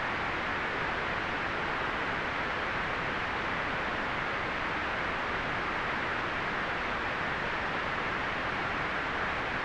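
Continuous white noise: an unbroken, even hiss, strongest in the middle range and softer in the highs.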